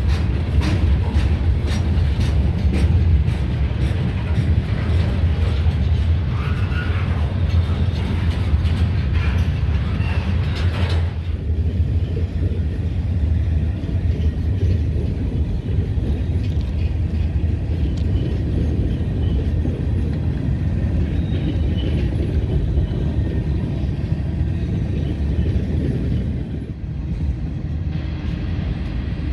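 Freight train rolling past, its loaded steel cars rumbling steadily on the rails with rapid clicking of wheels over the track. The clicking thins out about eleven seconds in.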